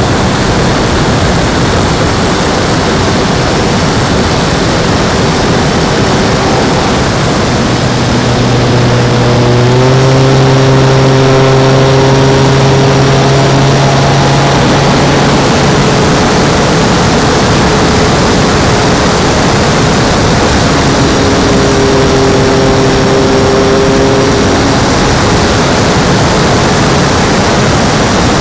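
Electric motor and propeller of an E-flite P-51 Mustang model plane, heard from a camera mounted on the plane in flight: a steady hum with a faint high whine under loud wind rush. About ten seconds in the motor's pitch steps up and the sound gets louder.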